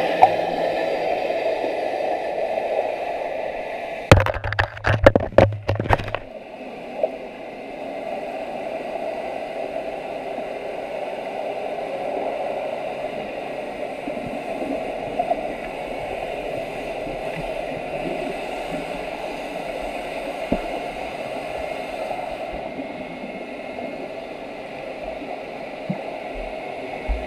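Muffled underwater noise picked up by a GoPro Hero 4 in its waterproof housing while submerged in lake water: a steady wash and hum. About four seconds in comes a cluster of sharp knocks lasting some two seconds.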